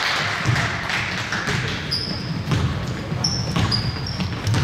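Basketball dribbled and bouncing on a gym floor, thudding at uneven intervals, with several short, high sneaker squeaks on the court.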